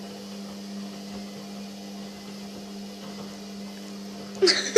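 Washing machine running through its wash with a steady low hum. A brief, loud sound cuts in near the end.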